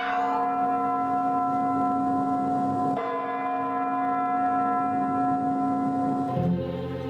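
A bell-like chime ringing out with a long sustained tone, struck again about three seconds in. Near the end it gives way to soft, low sustained music.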